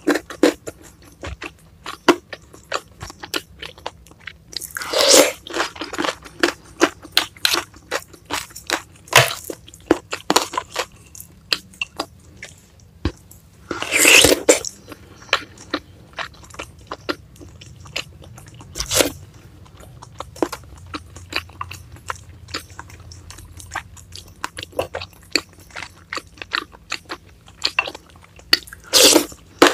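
Close-miked eating of a spicy meatball soup: steady chewing full of small crunchy clicks and bites. Loud slurps from a spoon about five seconds in and again, loudest, about fourteen seconds in.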